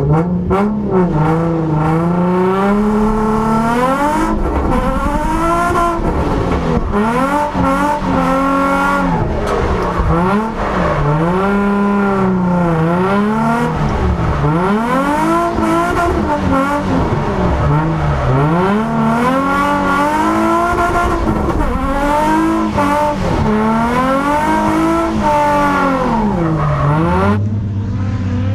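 Nissan 350Z drift car's engine revving hard and falling back again and again as it is held in a drift on a wet track, heard from a camera mounted on the car's door. Near the end it turns duller and more distant.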